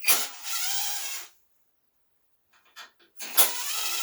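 Cordless power driver spinning out small screws in two short runs, each about a second long and about three seconds apart, each starting with a sharp click.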